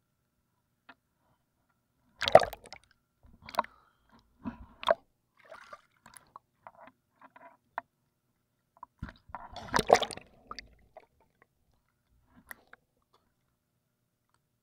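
Water splashing and sloshing close to a swimmer's camera held at the water surface, in irregular sudden bursts: the loudest a little past two seconds in and around ten seconds in, with smaller splashes between and quiet near the start and end.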